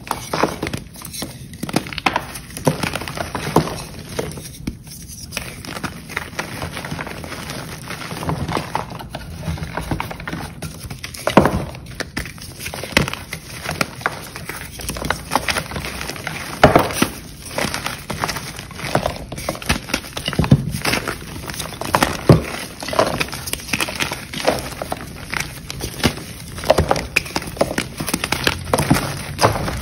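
Blocks of chalk being crushed and crumbled by hand: an irregular run of crisp cracks and crunches, with a few sharper snaps among them.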